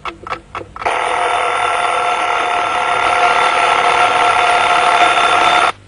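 Loud alarm ringing: three short rings, then one continuous ring for about five seconds that cuts off suddenly.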